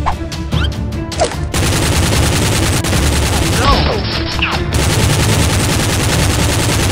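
Gunfire sound effects for Nerf blasters being fired: separate shots at first, then from about a second and a half in a dense, continuous burst of automatic fire.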